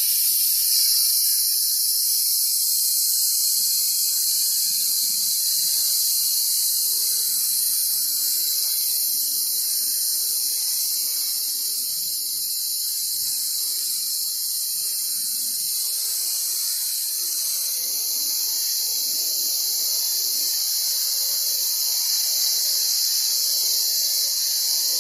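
Bestarc BTC500DP plasma cutter, set to 50 amps, cutting through steel angle iron: a loud, steady, high hiss of the air-plasma arc.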